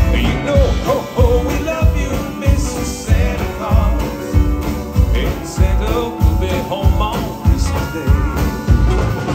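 Live band playing a country-style Christmas song: drums keep a steady beat about twice a second under keyboard and electric guitar.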